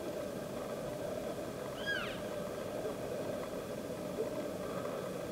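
Elk giving one short, high mewing call about two seconds in, its pitch arching up and then down: the mew that elk use as a contact call within a herd. A steady low background noise runs underneath.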